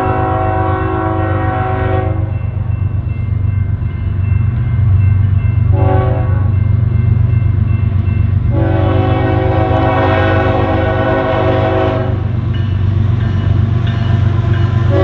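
Union Pacific diesel locomotive's multi-note air horn sounding the grade-crossing signal as the train approaches: a long blast ending about two seconds in, a short blast around six seconds, then another long blast from about eight and a half to twelve seconds. A steady low rumble from the approaching train runs underneath.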